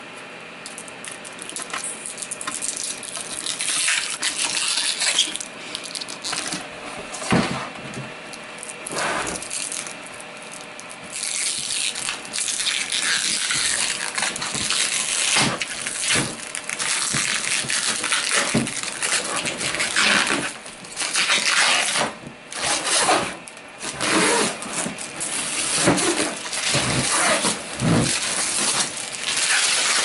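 Protective plastic film being peeled and crinkled off a 3D printer's clear plastic shell, an irregular crackling rustle with scattered knocks as the shell is handled and set down.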